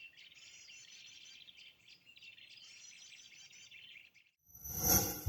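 Small birds twittering faintly, with quick runs of high chirps repeated over and over. About four and a half seconds in, a much louder swelling sound comes in and drowns them out.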